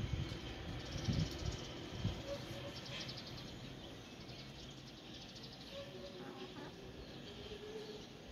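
Chickens foraging, with a few soft low taps in the first two seconds and a few faint, short low clucks later, over a steady high chirring of insects.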